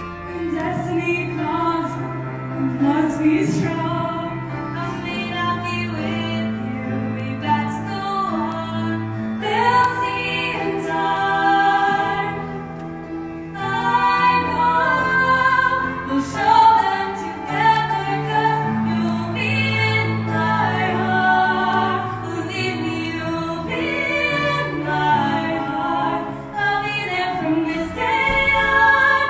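Two female voices singing a duet with grand piano accompaniment, the piano holding low sustained notes under the melody.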